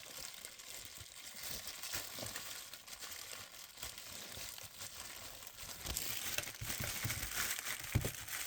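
Plastic bag crinkling and rustling as it is opened and handled, with louder rustling and a few sharp clicks near the end as the toys inside are moved about.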